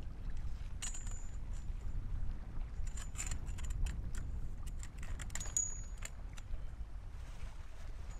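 Light metallic clinks and jingles from a metal tent pole and its fittings as it is set into a canvas tent's peak: a scatter of short ringing clicks between about one and six seconds in, over a steady low rumble of wind.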